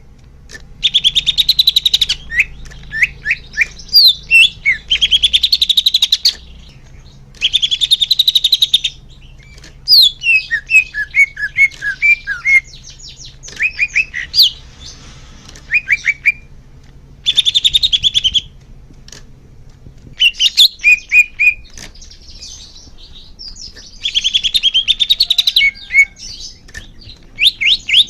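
Greater green leafbird (cucak hijau) singing: loud phrases of rapid chattering trills and quick down-slurred whistles, each a second or two long, with short pauses between them.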